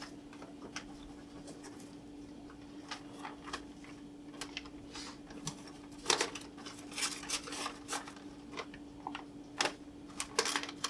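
Pen scratching on paper in short, irregular strokes as a letter is written, busier in the second half, over a steady low hum.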